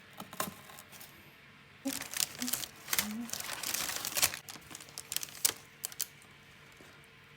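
Crinkling and rustling of a crinkly material being handled, with sharp light clicks and taps. The busiest stretch comes about two seconds in and lasts a couple of seconds, followed by a few scattered clicks.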